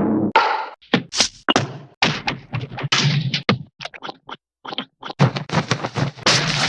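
A rapid string of short cartoon sound effects, mostly hits and knocks, one after another with brief gaps and a short pause about two-thirds of the way through.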